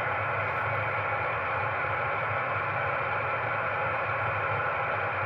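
Steady band noise from a shortwave ham receiver's speaker between transmissions: an even hiss cut off above about 3 kHz, with a low hum underneath.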